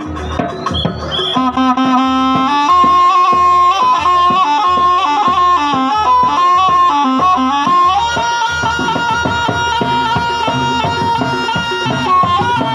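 Jaranan ensemble music: a reedy slompret (Javanese shawm) plays a wavering melody over regular kendang drum strokes. The melody comes in about a second and a half in, and from about eight seconds in it holds long notes.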